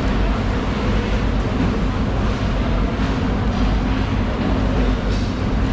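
A steady low mechanical rumble with a constant hum.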